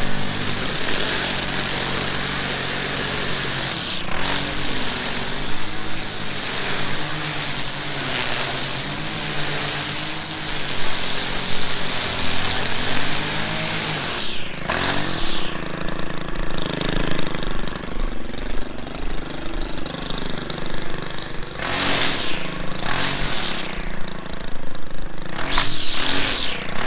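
Stihl string trimmer running at high throttle while cutting, its engine pitch wavering, with a strong high whir from the spinning line. The engine drops and picks back up a few times, more often after the middle.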